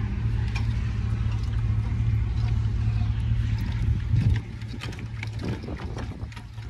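Tow vehicle's engine idling steadily close by; a little over four seconds in it drops noticeably quieter, and light metallic clicks follow as the trailer's tongue jack handle is taken in hand.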